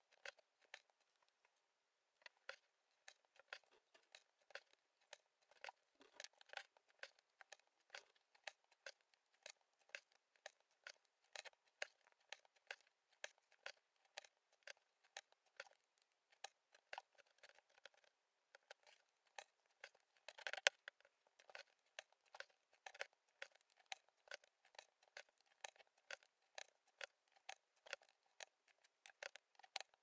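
Faint, irregular ticks and pops, a few each second, of an embroidery needle piercing the fabric and a single strand of floss being drawn through, as long and short stitches are worked. One louder knock comes about twenty seconds in.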